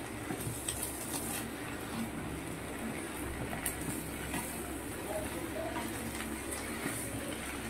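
Wooden spatula stirring and scraping sliced bamboo shoots and drumstick leaves in a frying pan, with scattered clicks against the pan over a steady sizzle of frying.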